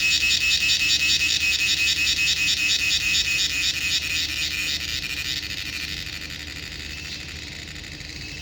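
Cricket chirping: a rapid, evenly pulsed high-pitched trill that becomes quieter about five seconds in.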